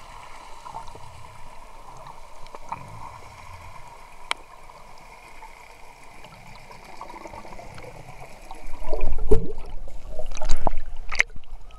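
Underwater sound through a camera: a steady faint hiss and whine with scattered small clicks, then, about eight and a half seconds in, two loud bursts of rumbling bubbling, a scuba diver exhaling through the regulator.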